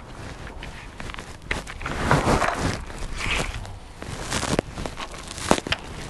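Footsteps with irregular crunching and rustling, and a few short sharp clicks, the sharpest near the end.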